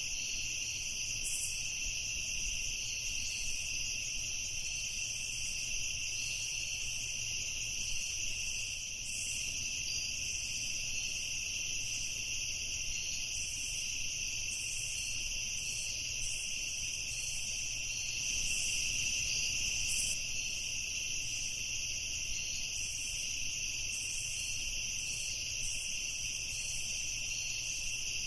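Night insect chorus, mostly crickets, a steady unbroken high trill with faint short ticks above it.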